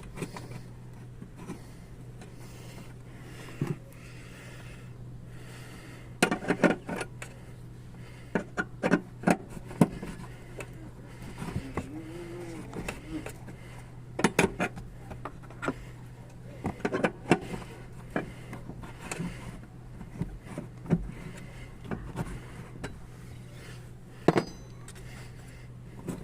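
Irregular metallic clinks and knocks of tools and the battery being handled and fastened during a car battery replacement, some in quick clusters, over a steady low hum.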